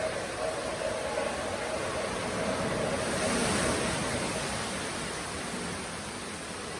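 Steady rushing of water in a spa pool. It swells a little about halfway through, then eases off.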